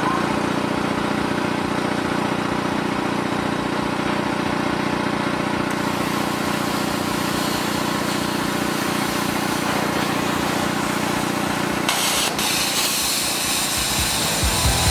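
Plasma cutter cutting through the mild-steel wall around a rusted threaded bung in a steel fuel tank: a steady hiss of air and arc over a hum. About twelve seconds in the sound turns brighter and hissier.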